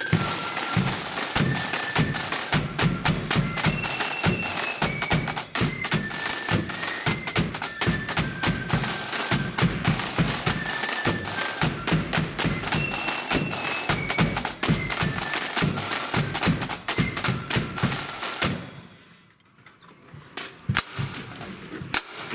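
Marching flute band playing a tune: shrill flutes carry the melody over rapid snare and bass drum beats. The music stops about three-quarters of the way through, leaving only a few scattered knocks.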